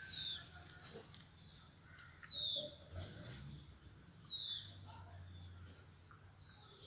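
A bird calling: a short, high note that falls in pitch, repeated about every two seconds.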